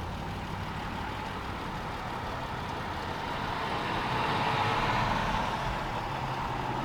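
Car driving: steady engine and road noise heard from inside the cabin, swelling a little about four seconds in.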